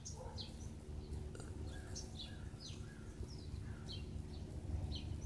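Small birds chirping in short, quickly falling notes, about two a second, over the steady low drone of a single-engine Cessna's piston engine passing low overhead.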